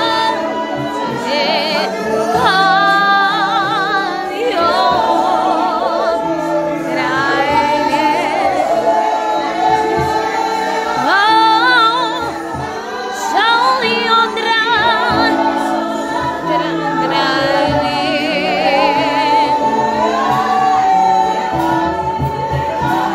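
A group of men and women singing a worship song together, accompanied by an acoustic guitar, several voices singing with strong vibrato.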